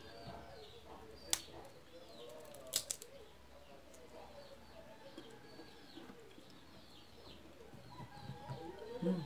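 Boiled peanut shells cracked open by hand, with a sharp crack about a second and a half in and another near three seconds. Birds call faintly in the background throughout.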